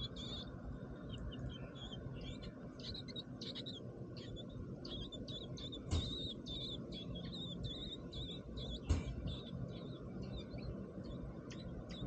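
American robin nestlings begging with rapid, thin, high-pitched chirps while the adult feeds them at the nest, most constant in the middle stretch. Two sharp knocks, about six and nine seconds in.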